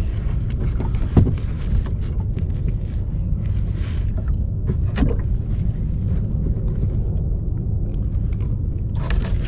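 Wind rumbling steadily on the microphone aboard a kayak on open water, with a couple of light knocks, about a second in and about five seconds in.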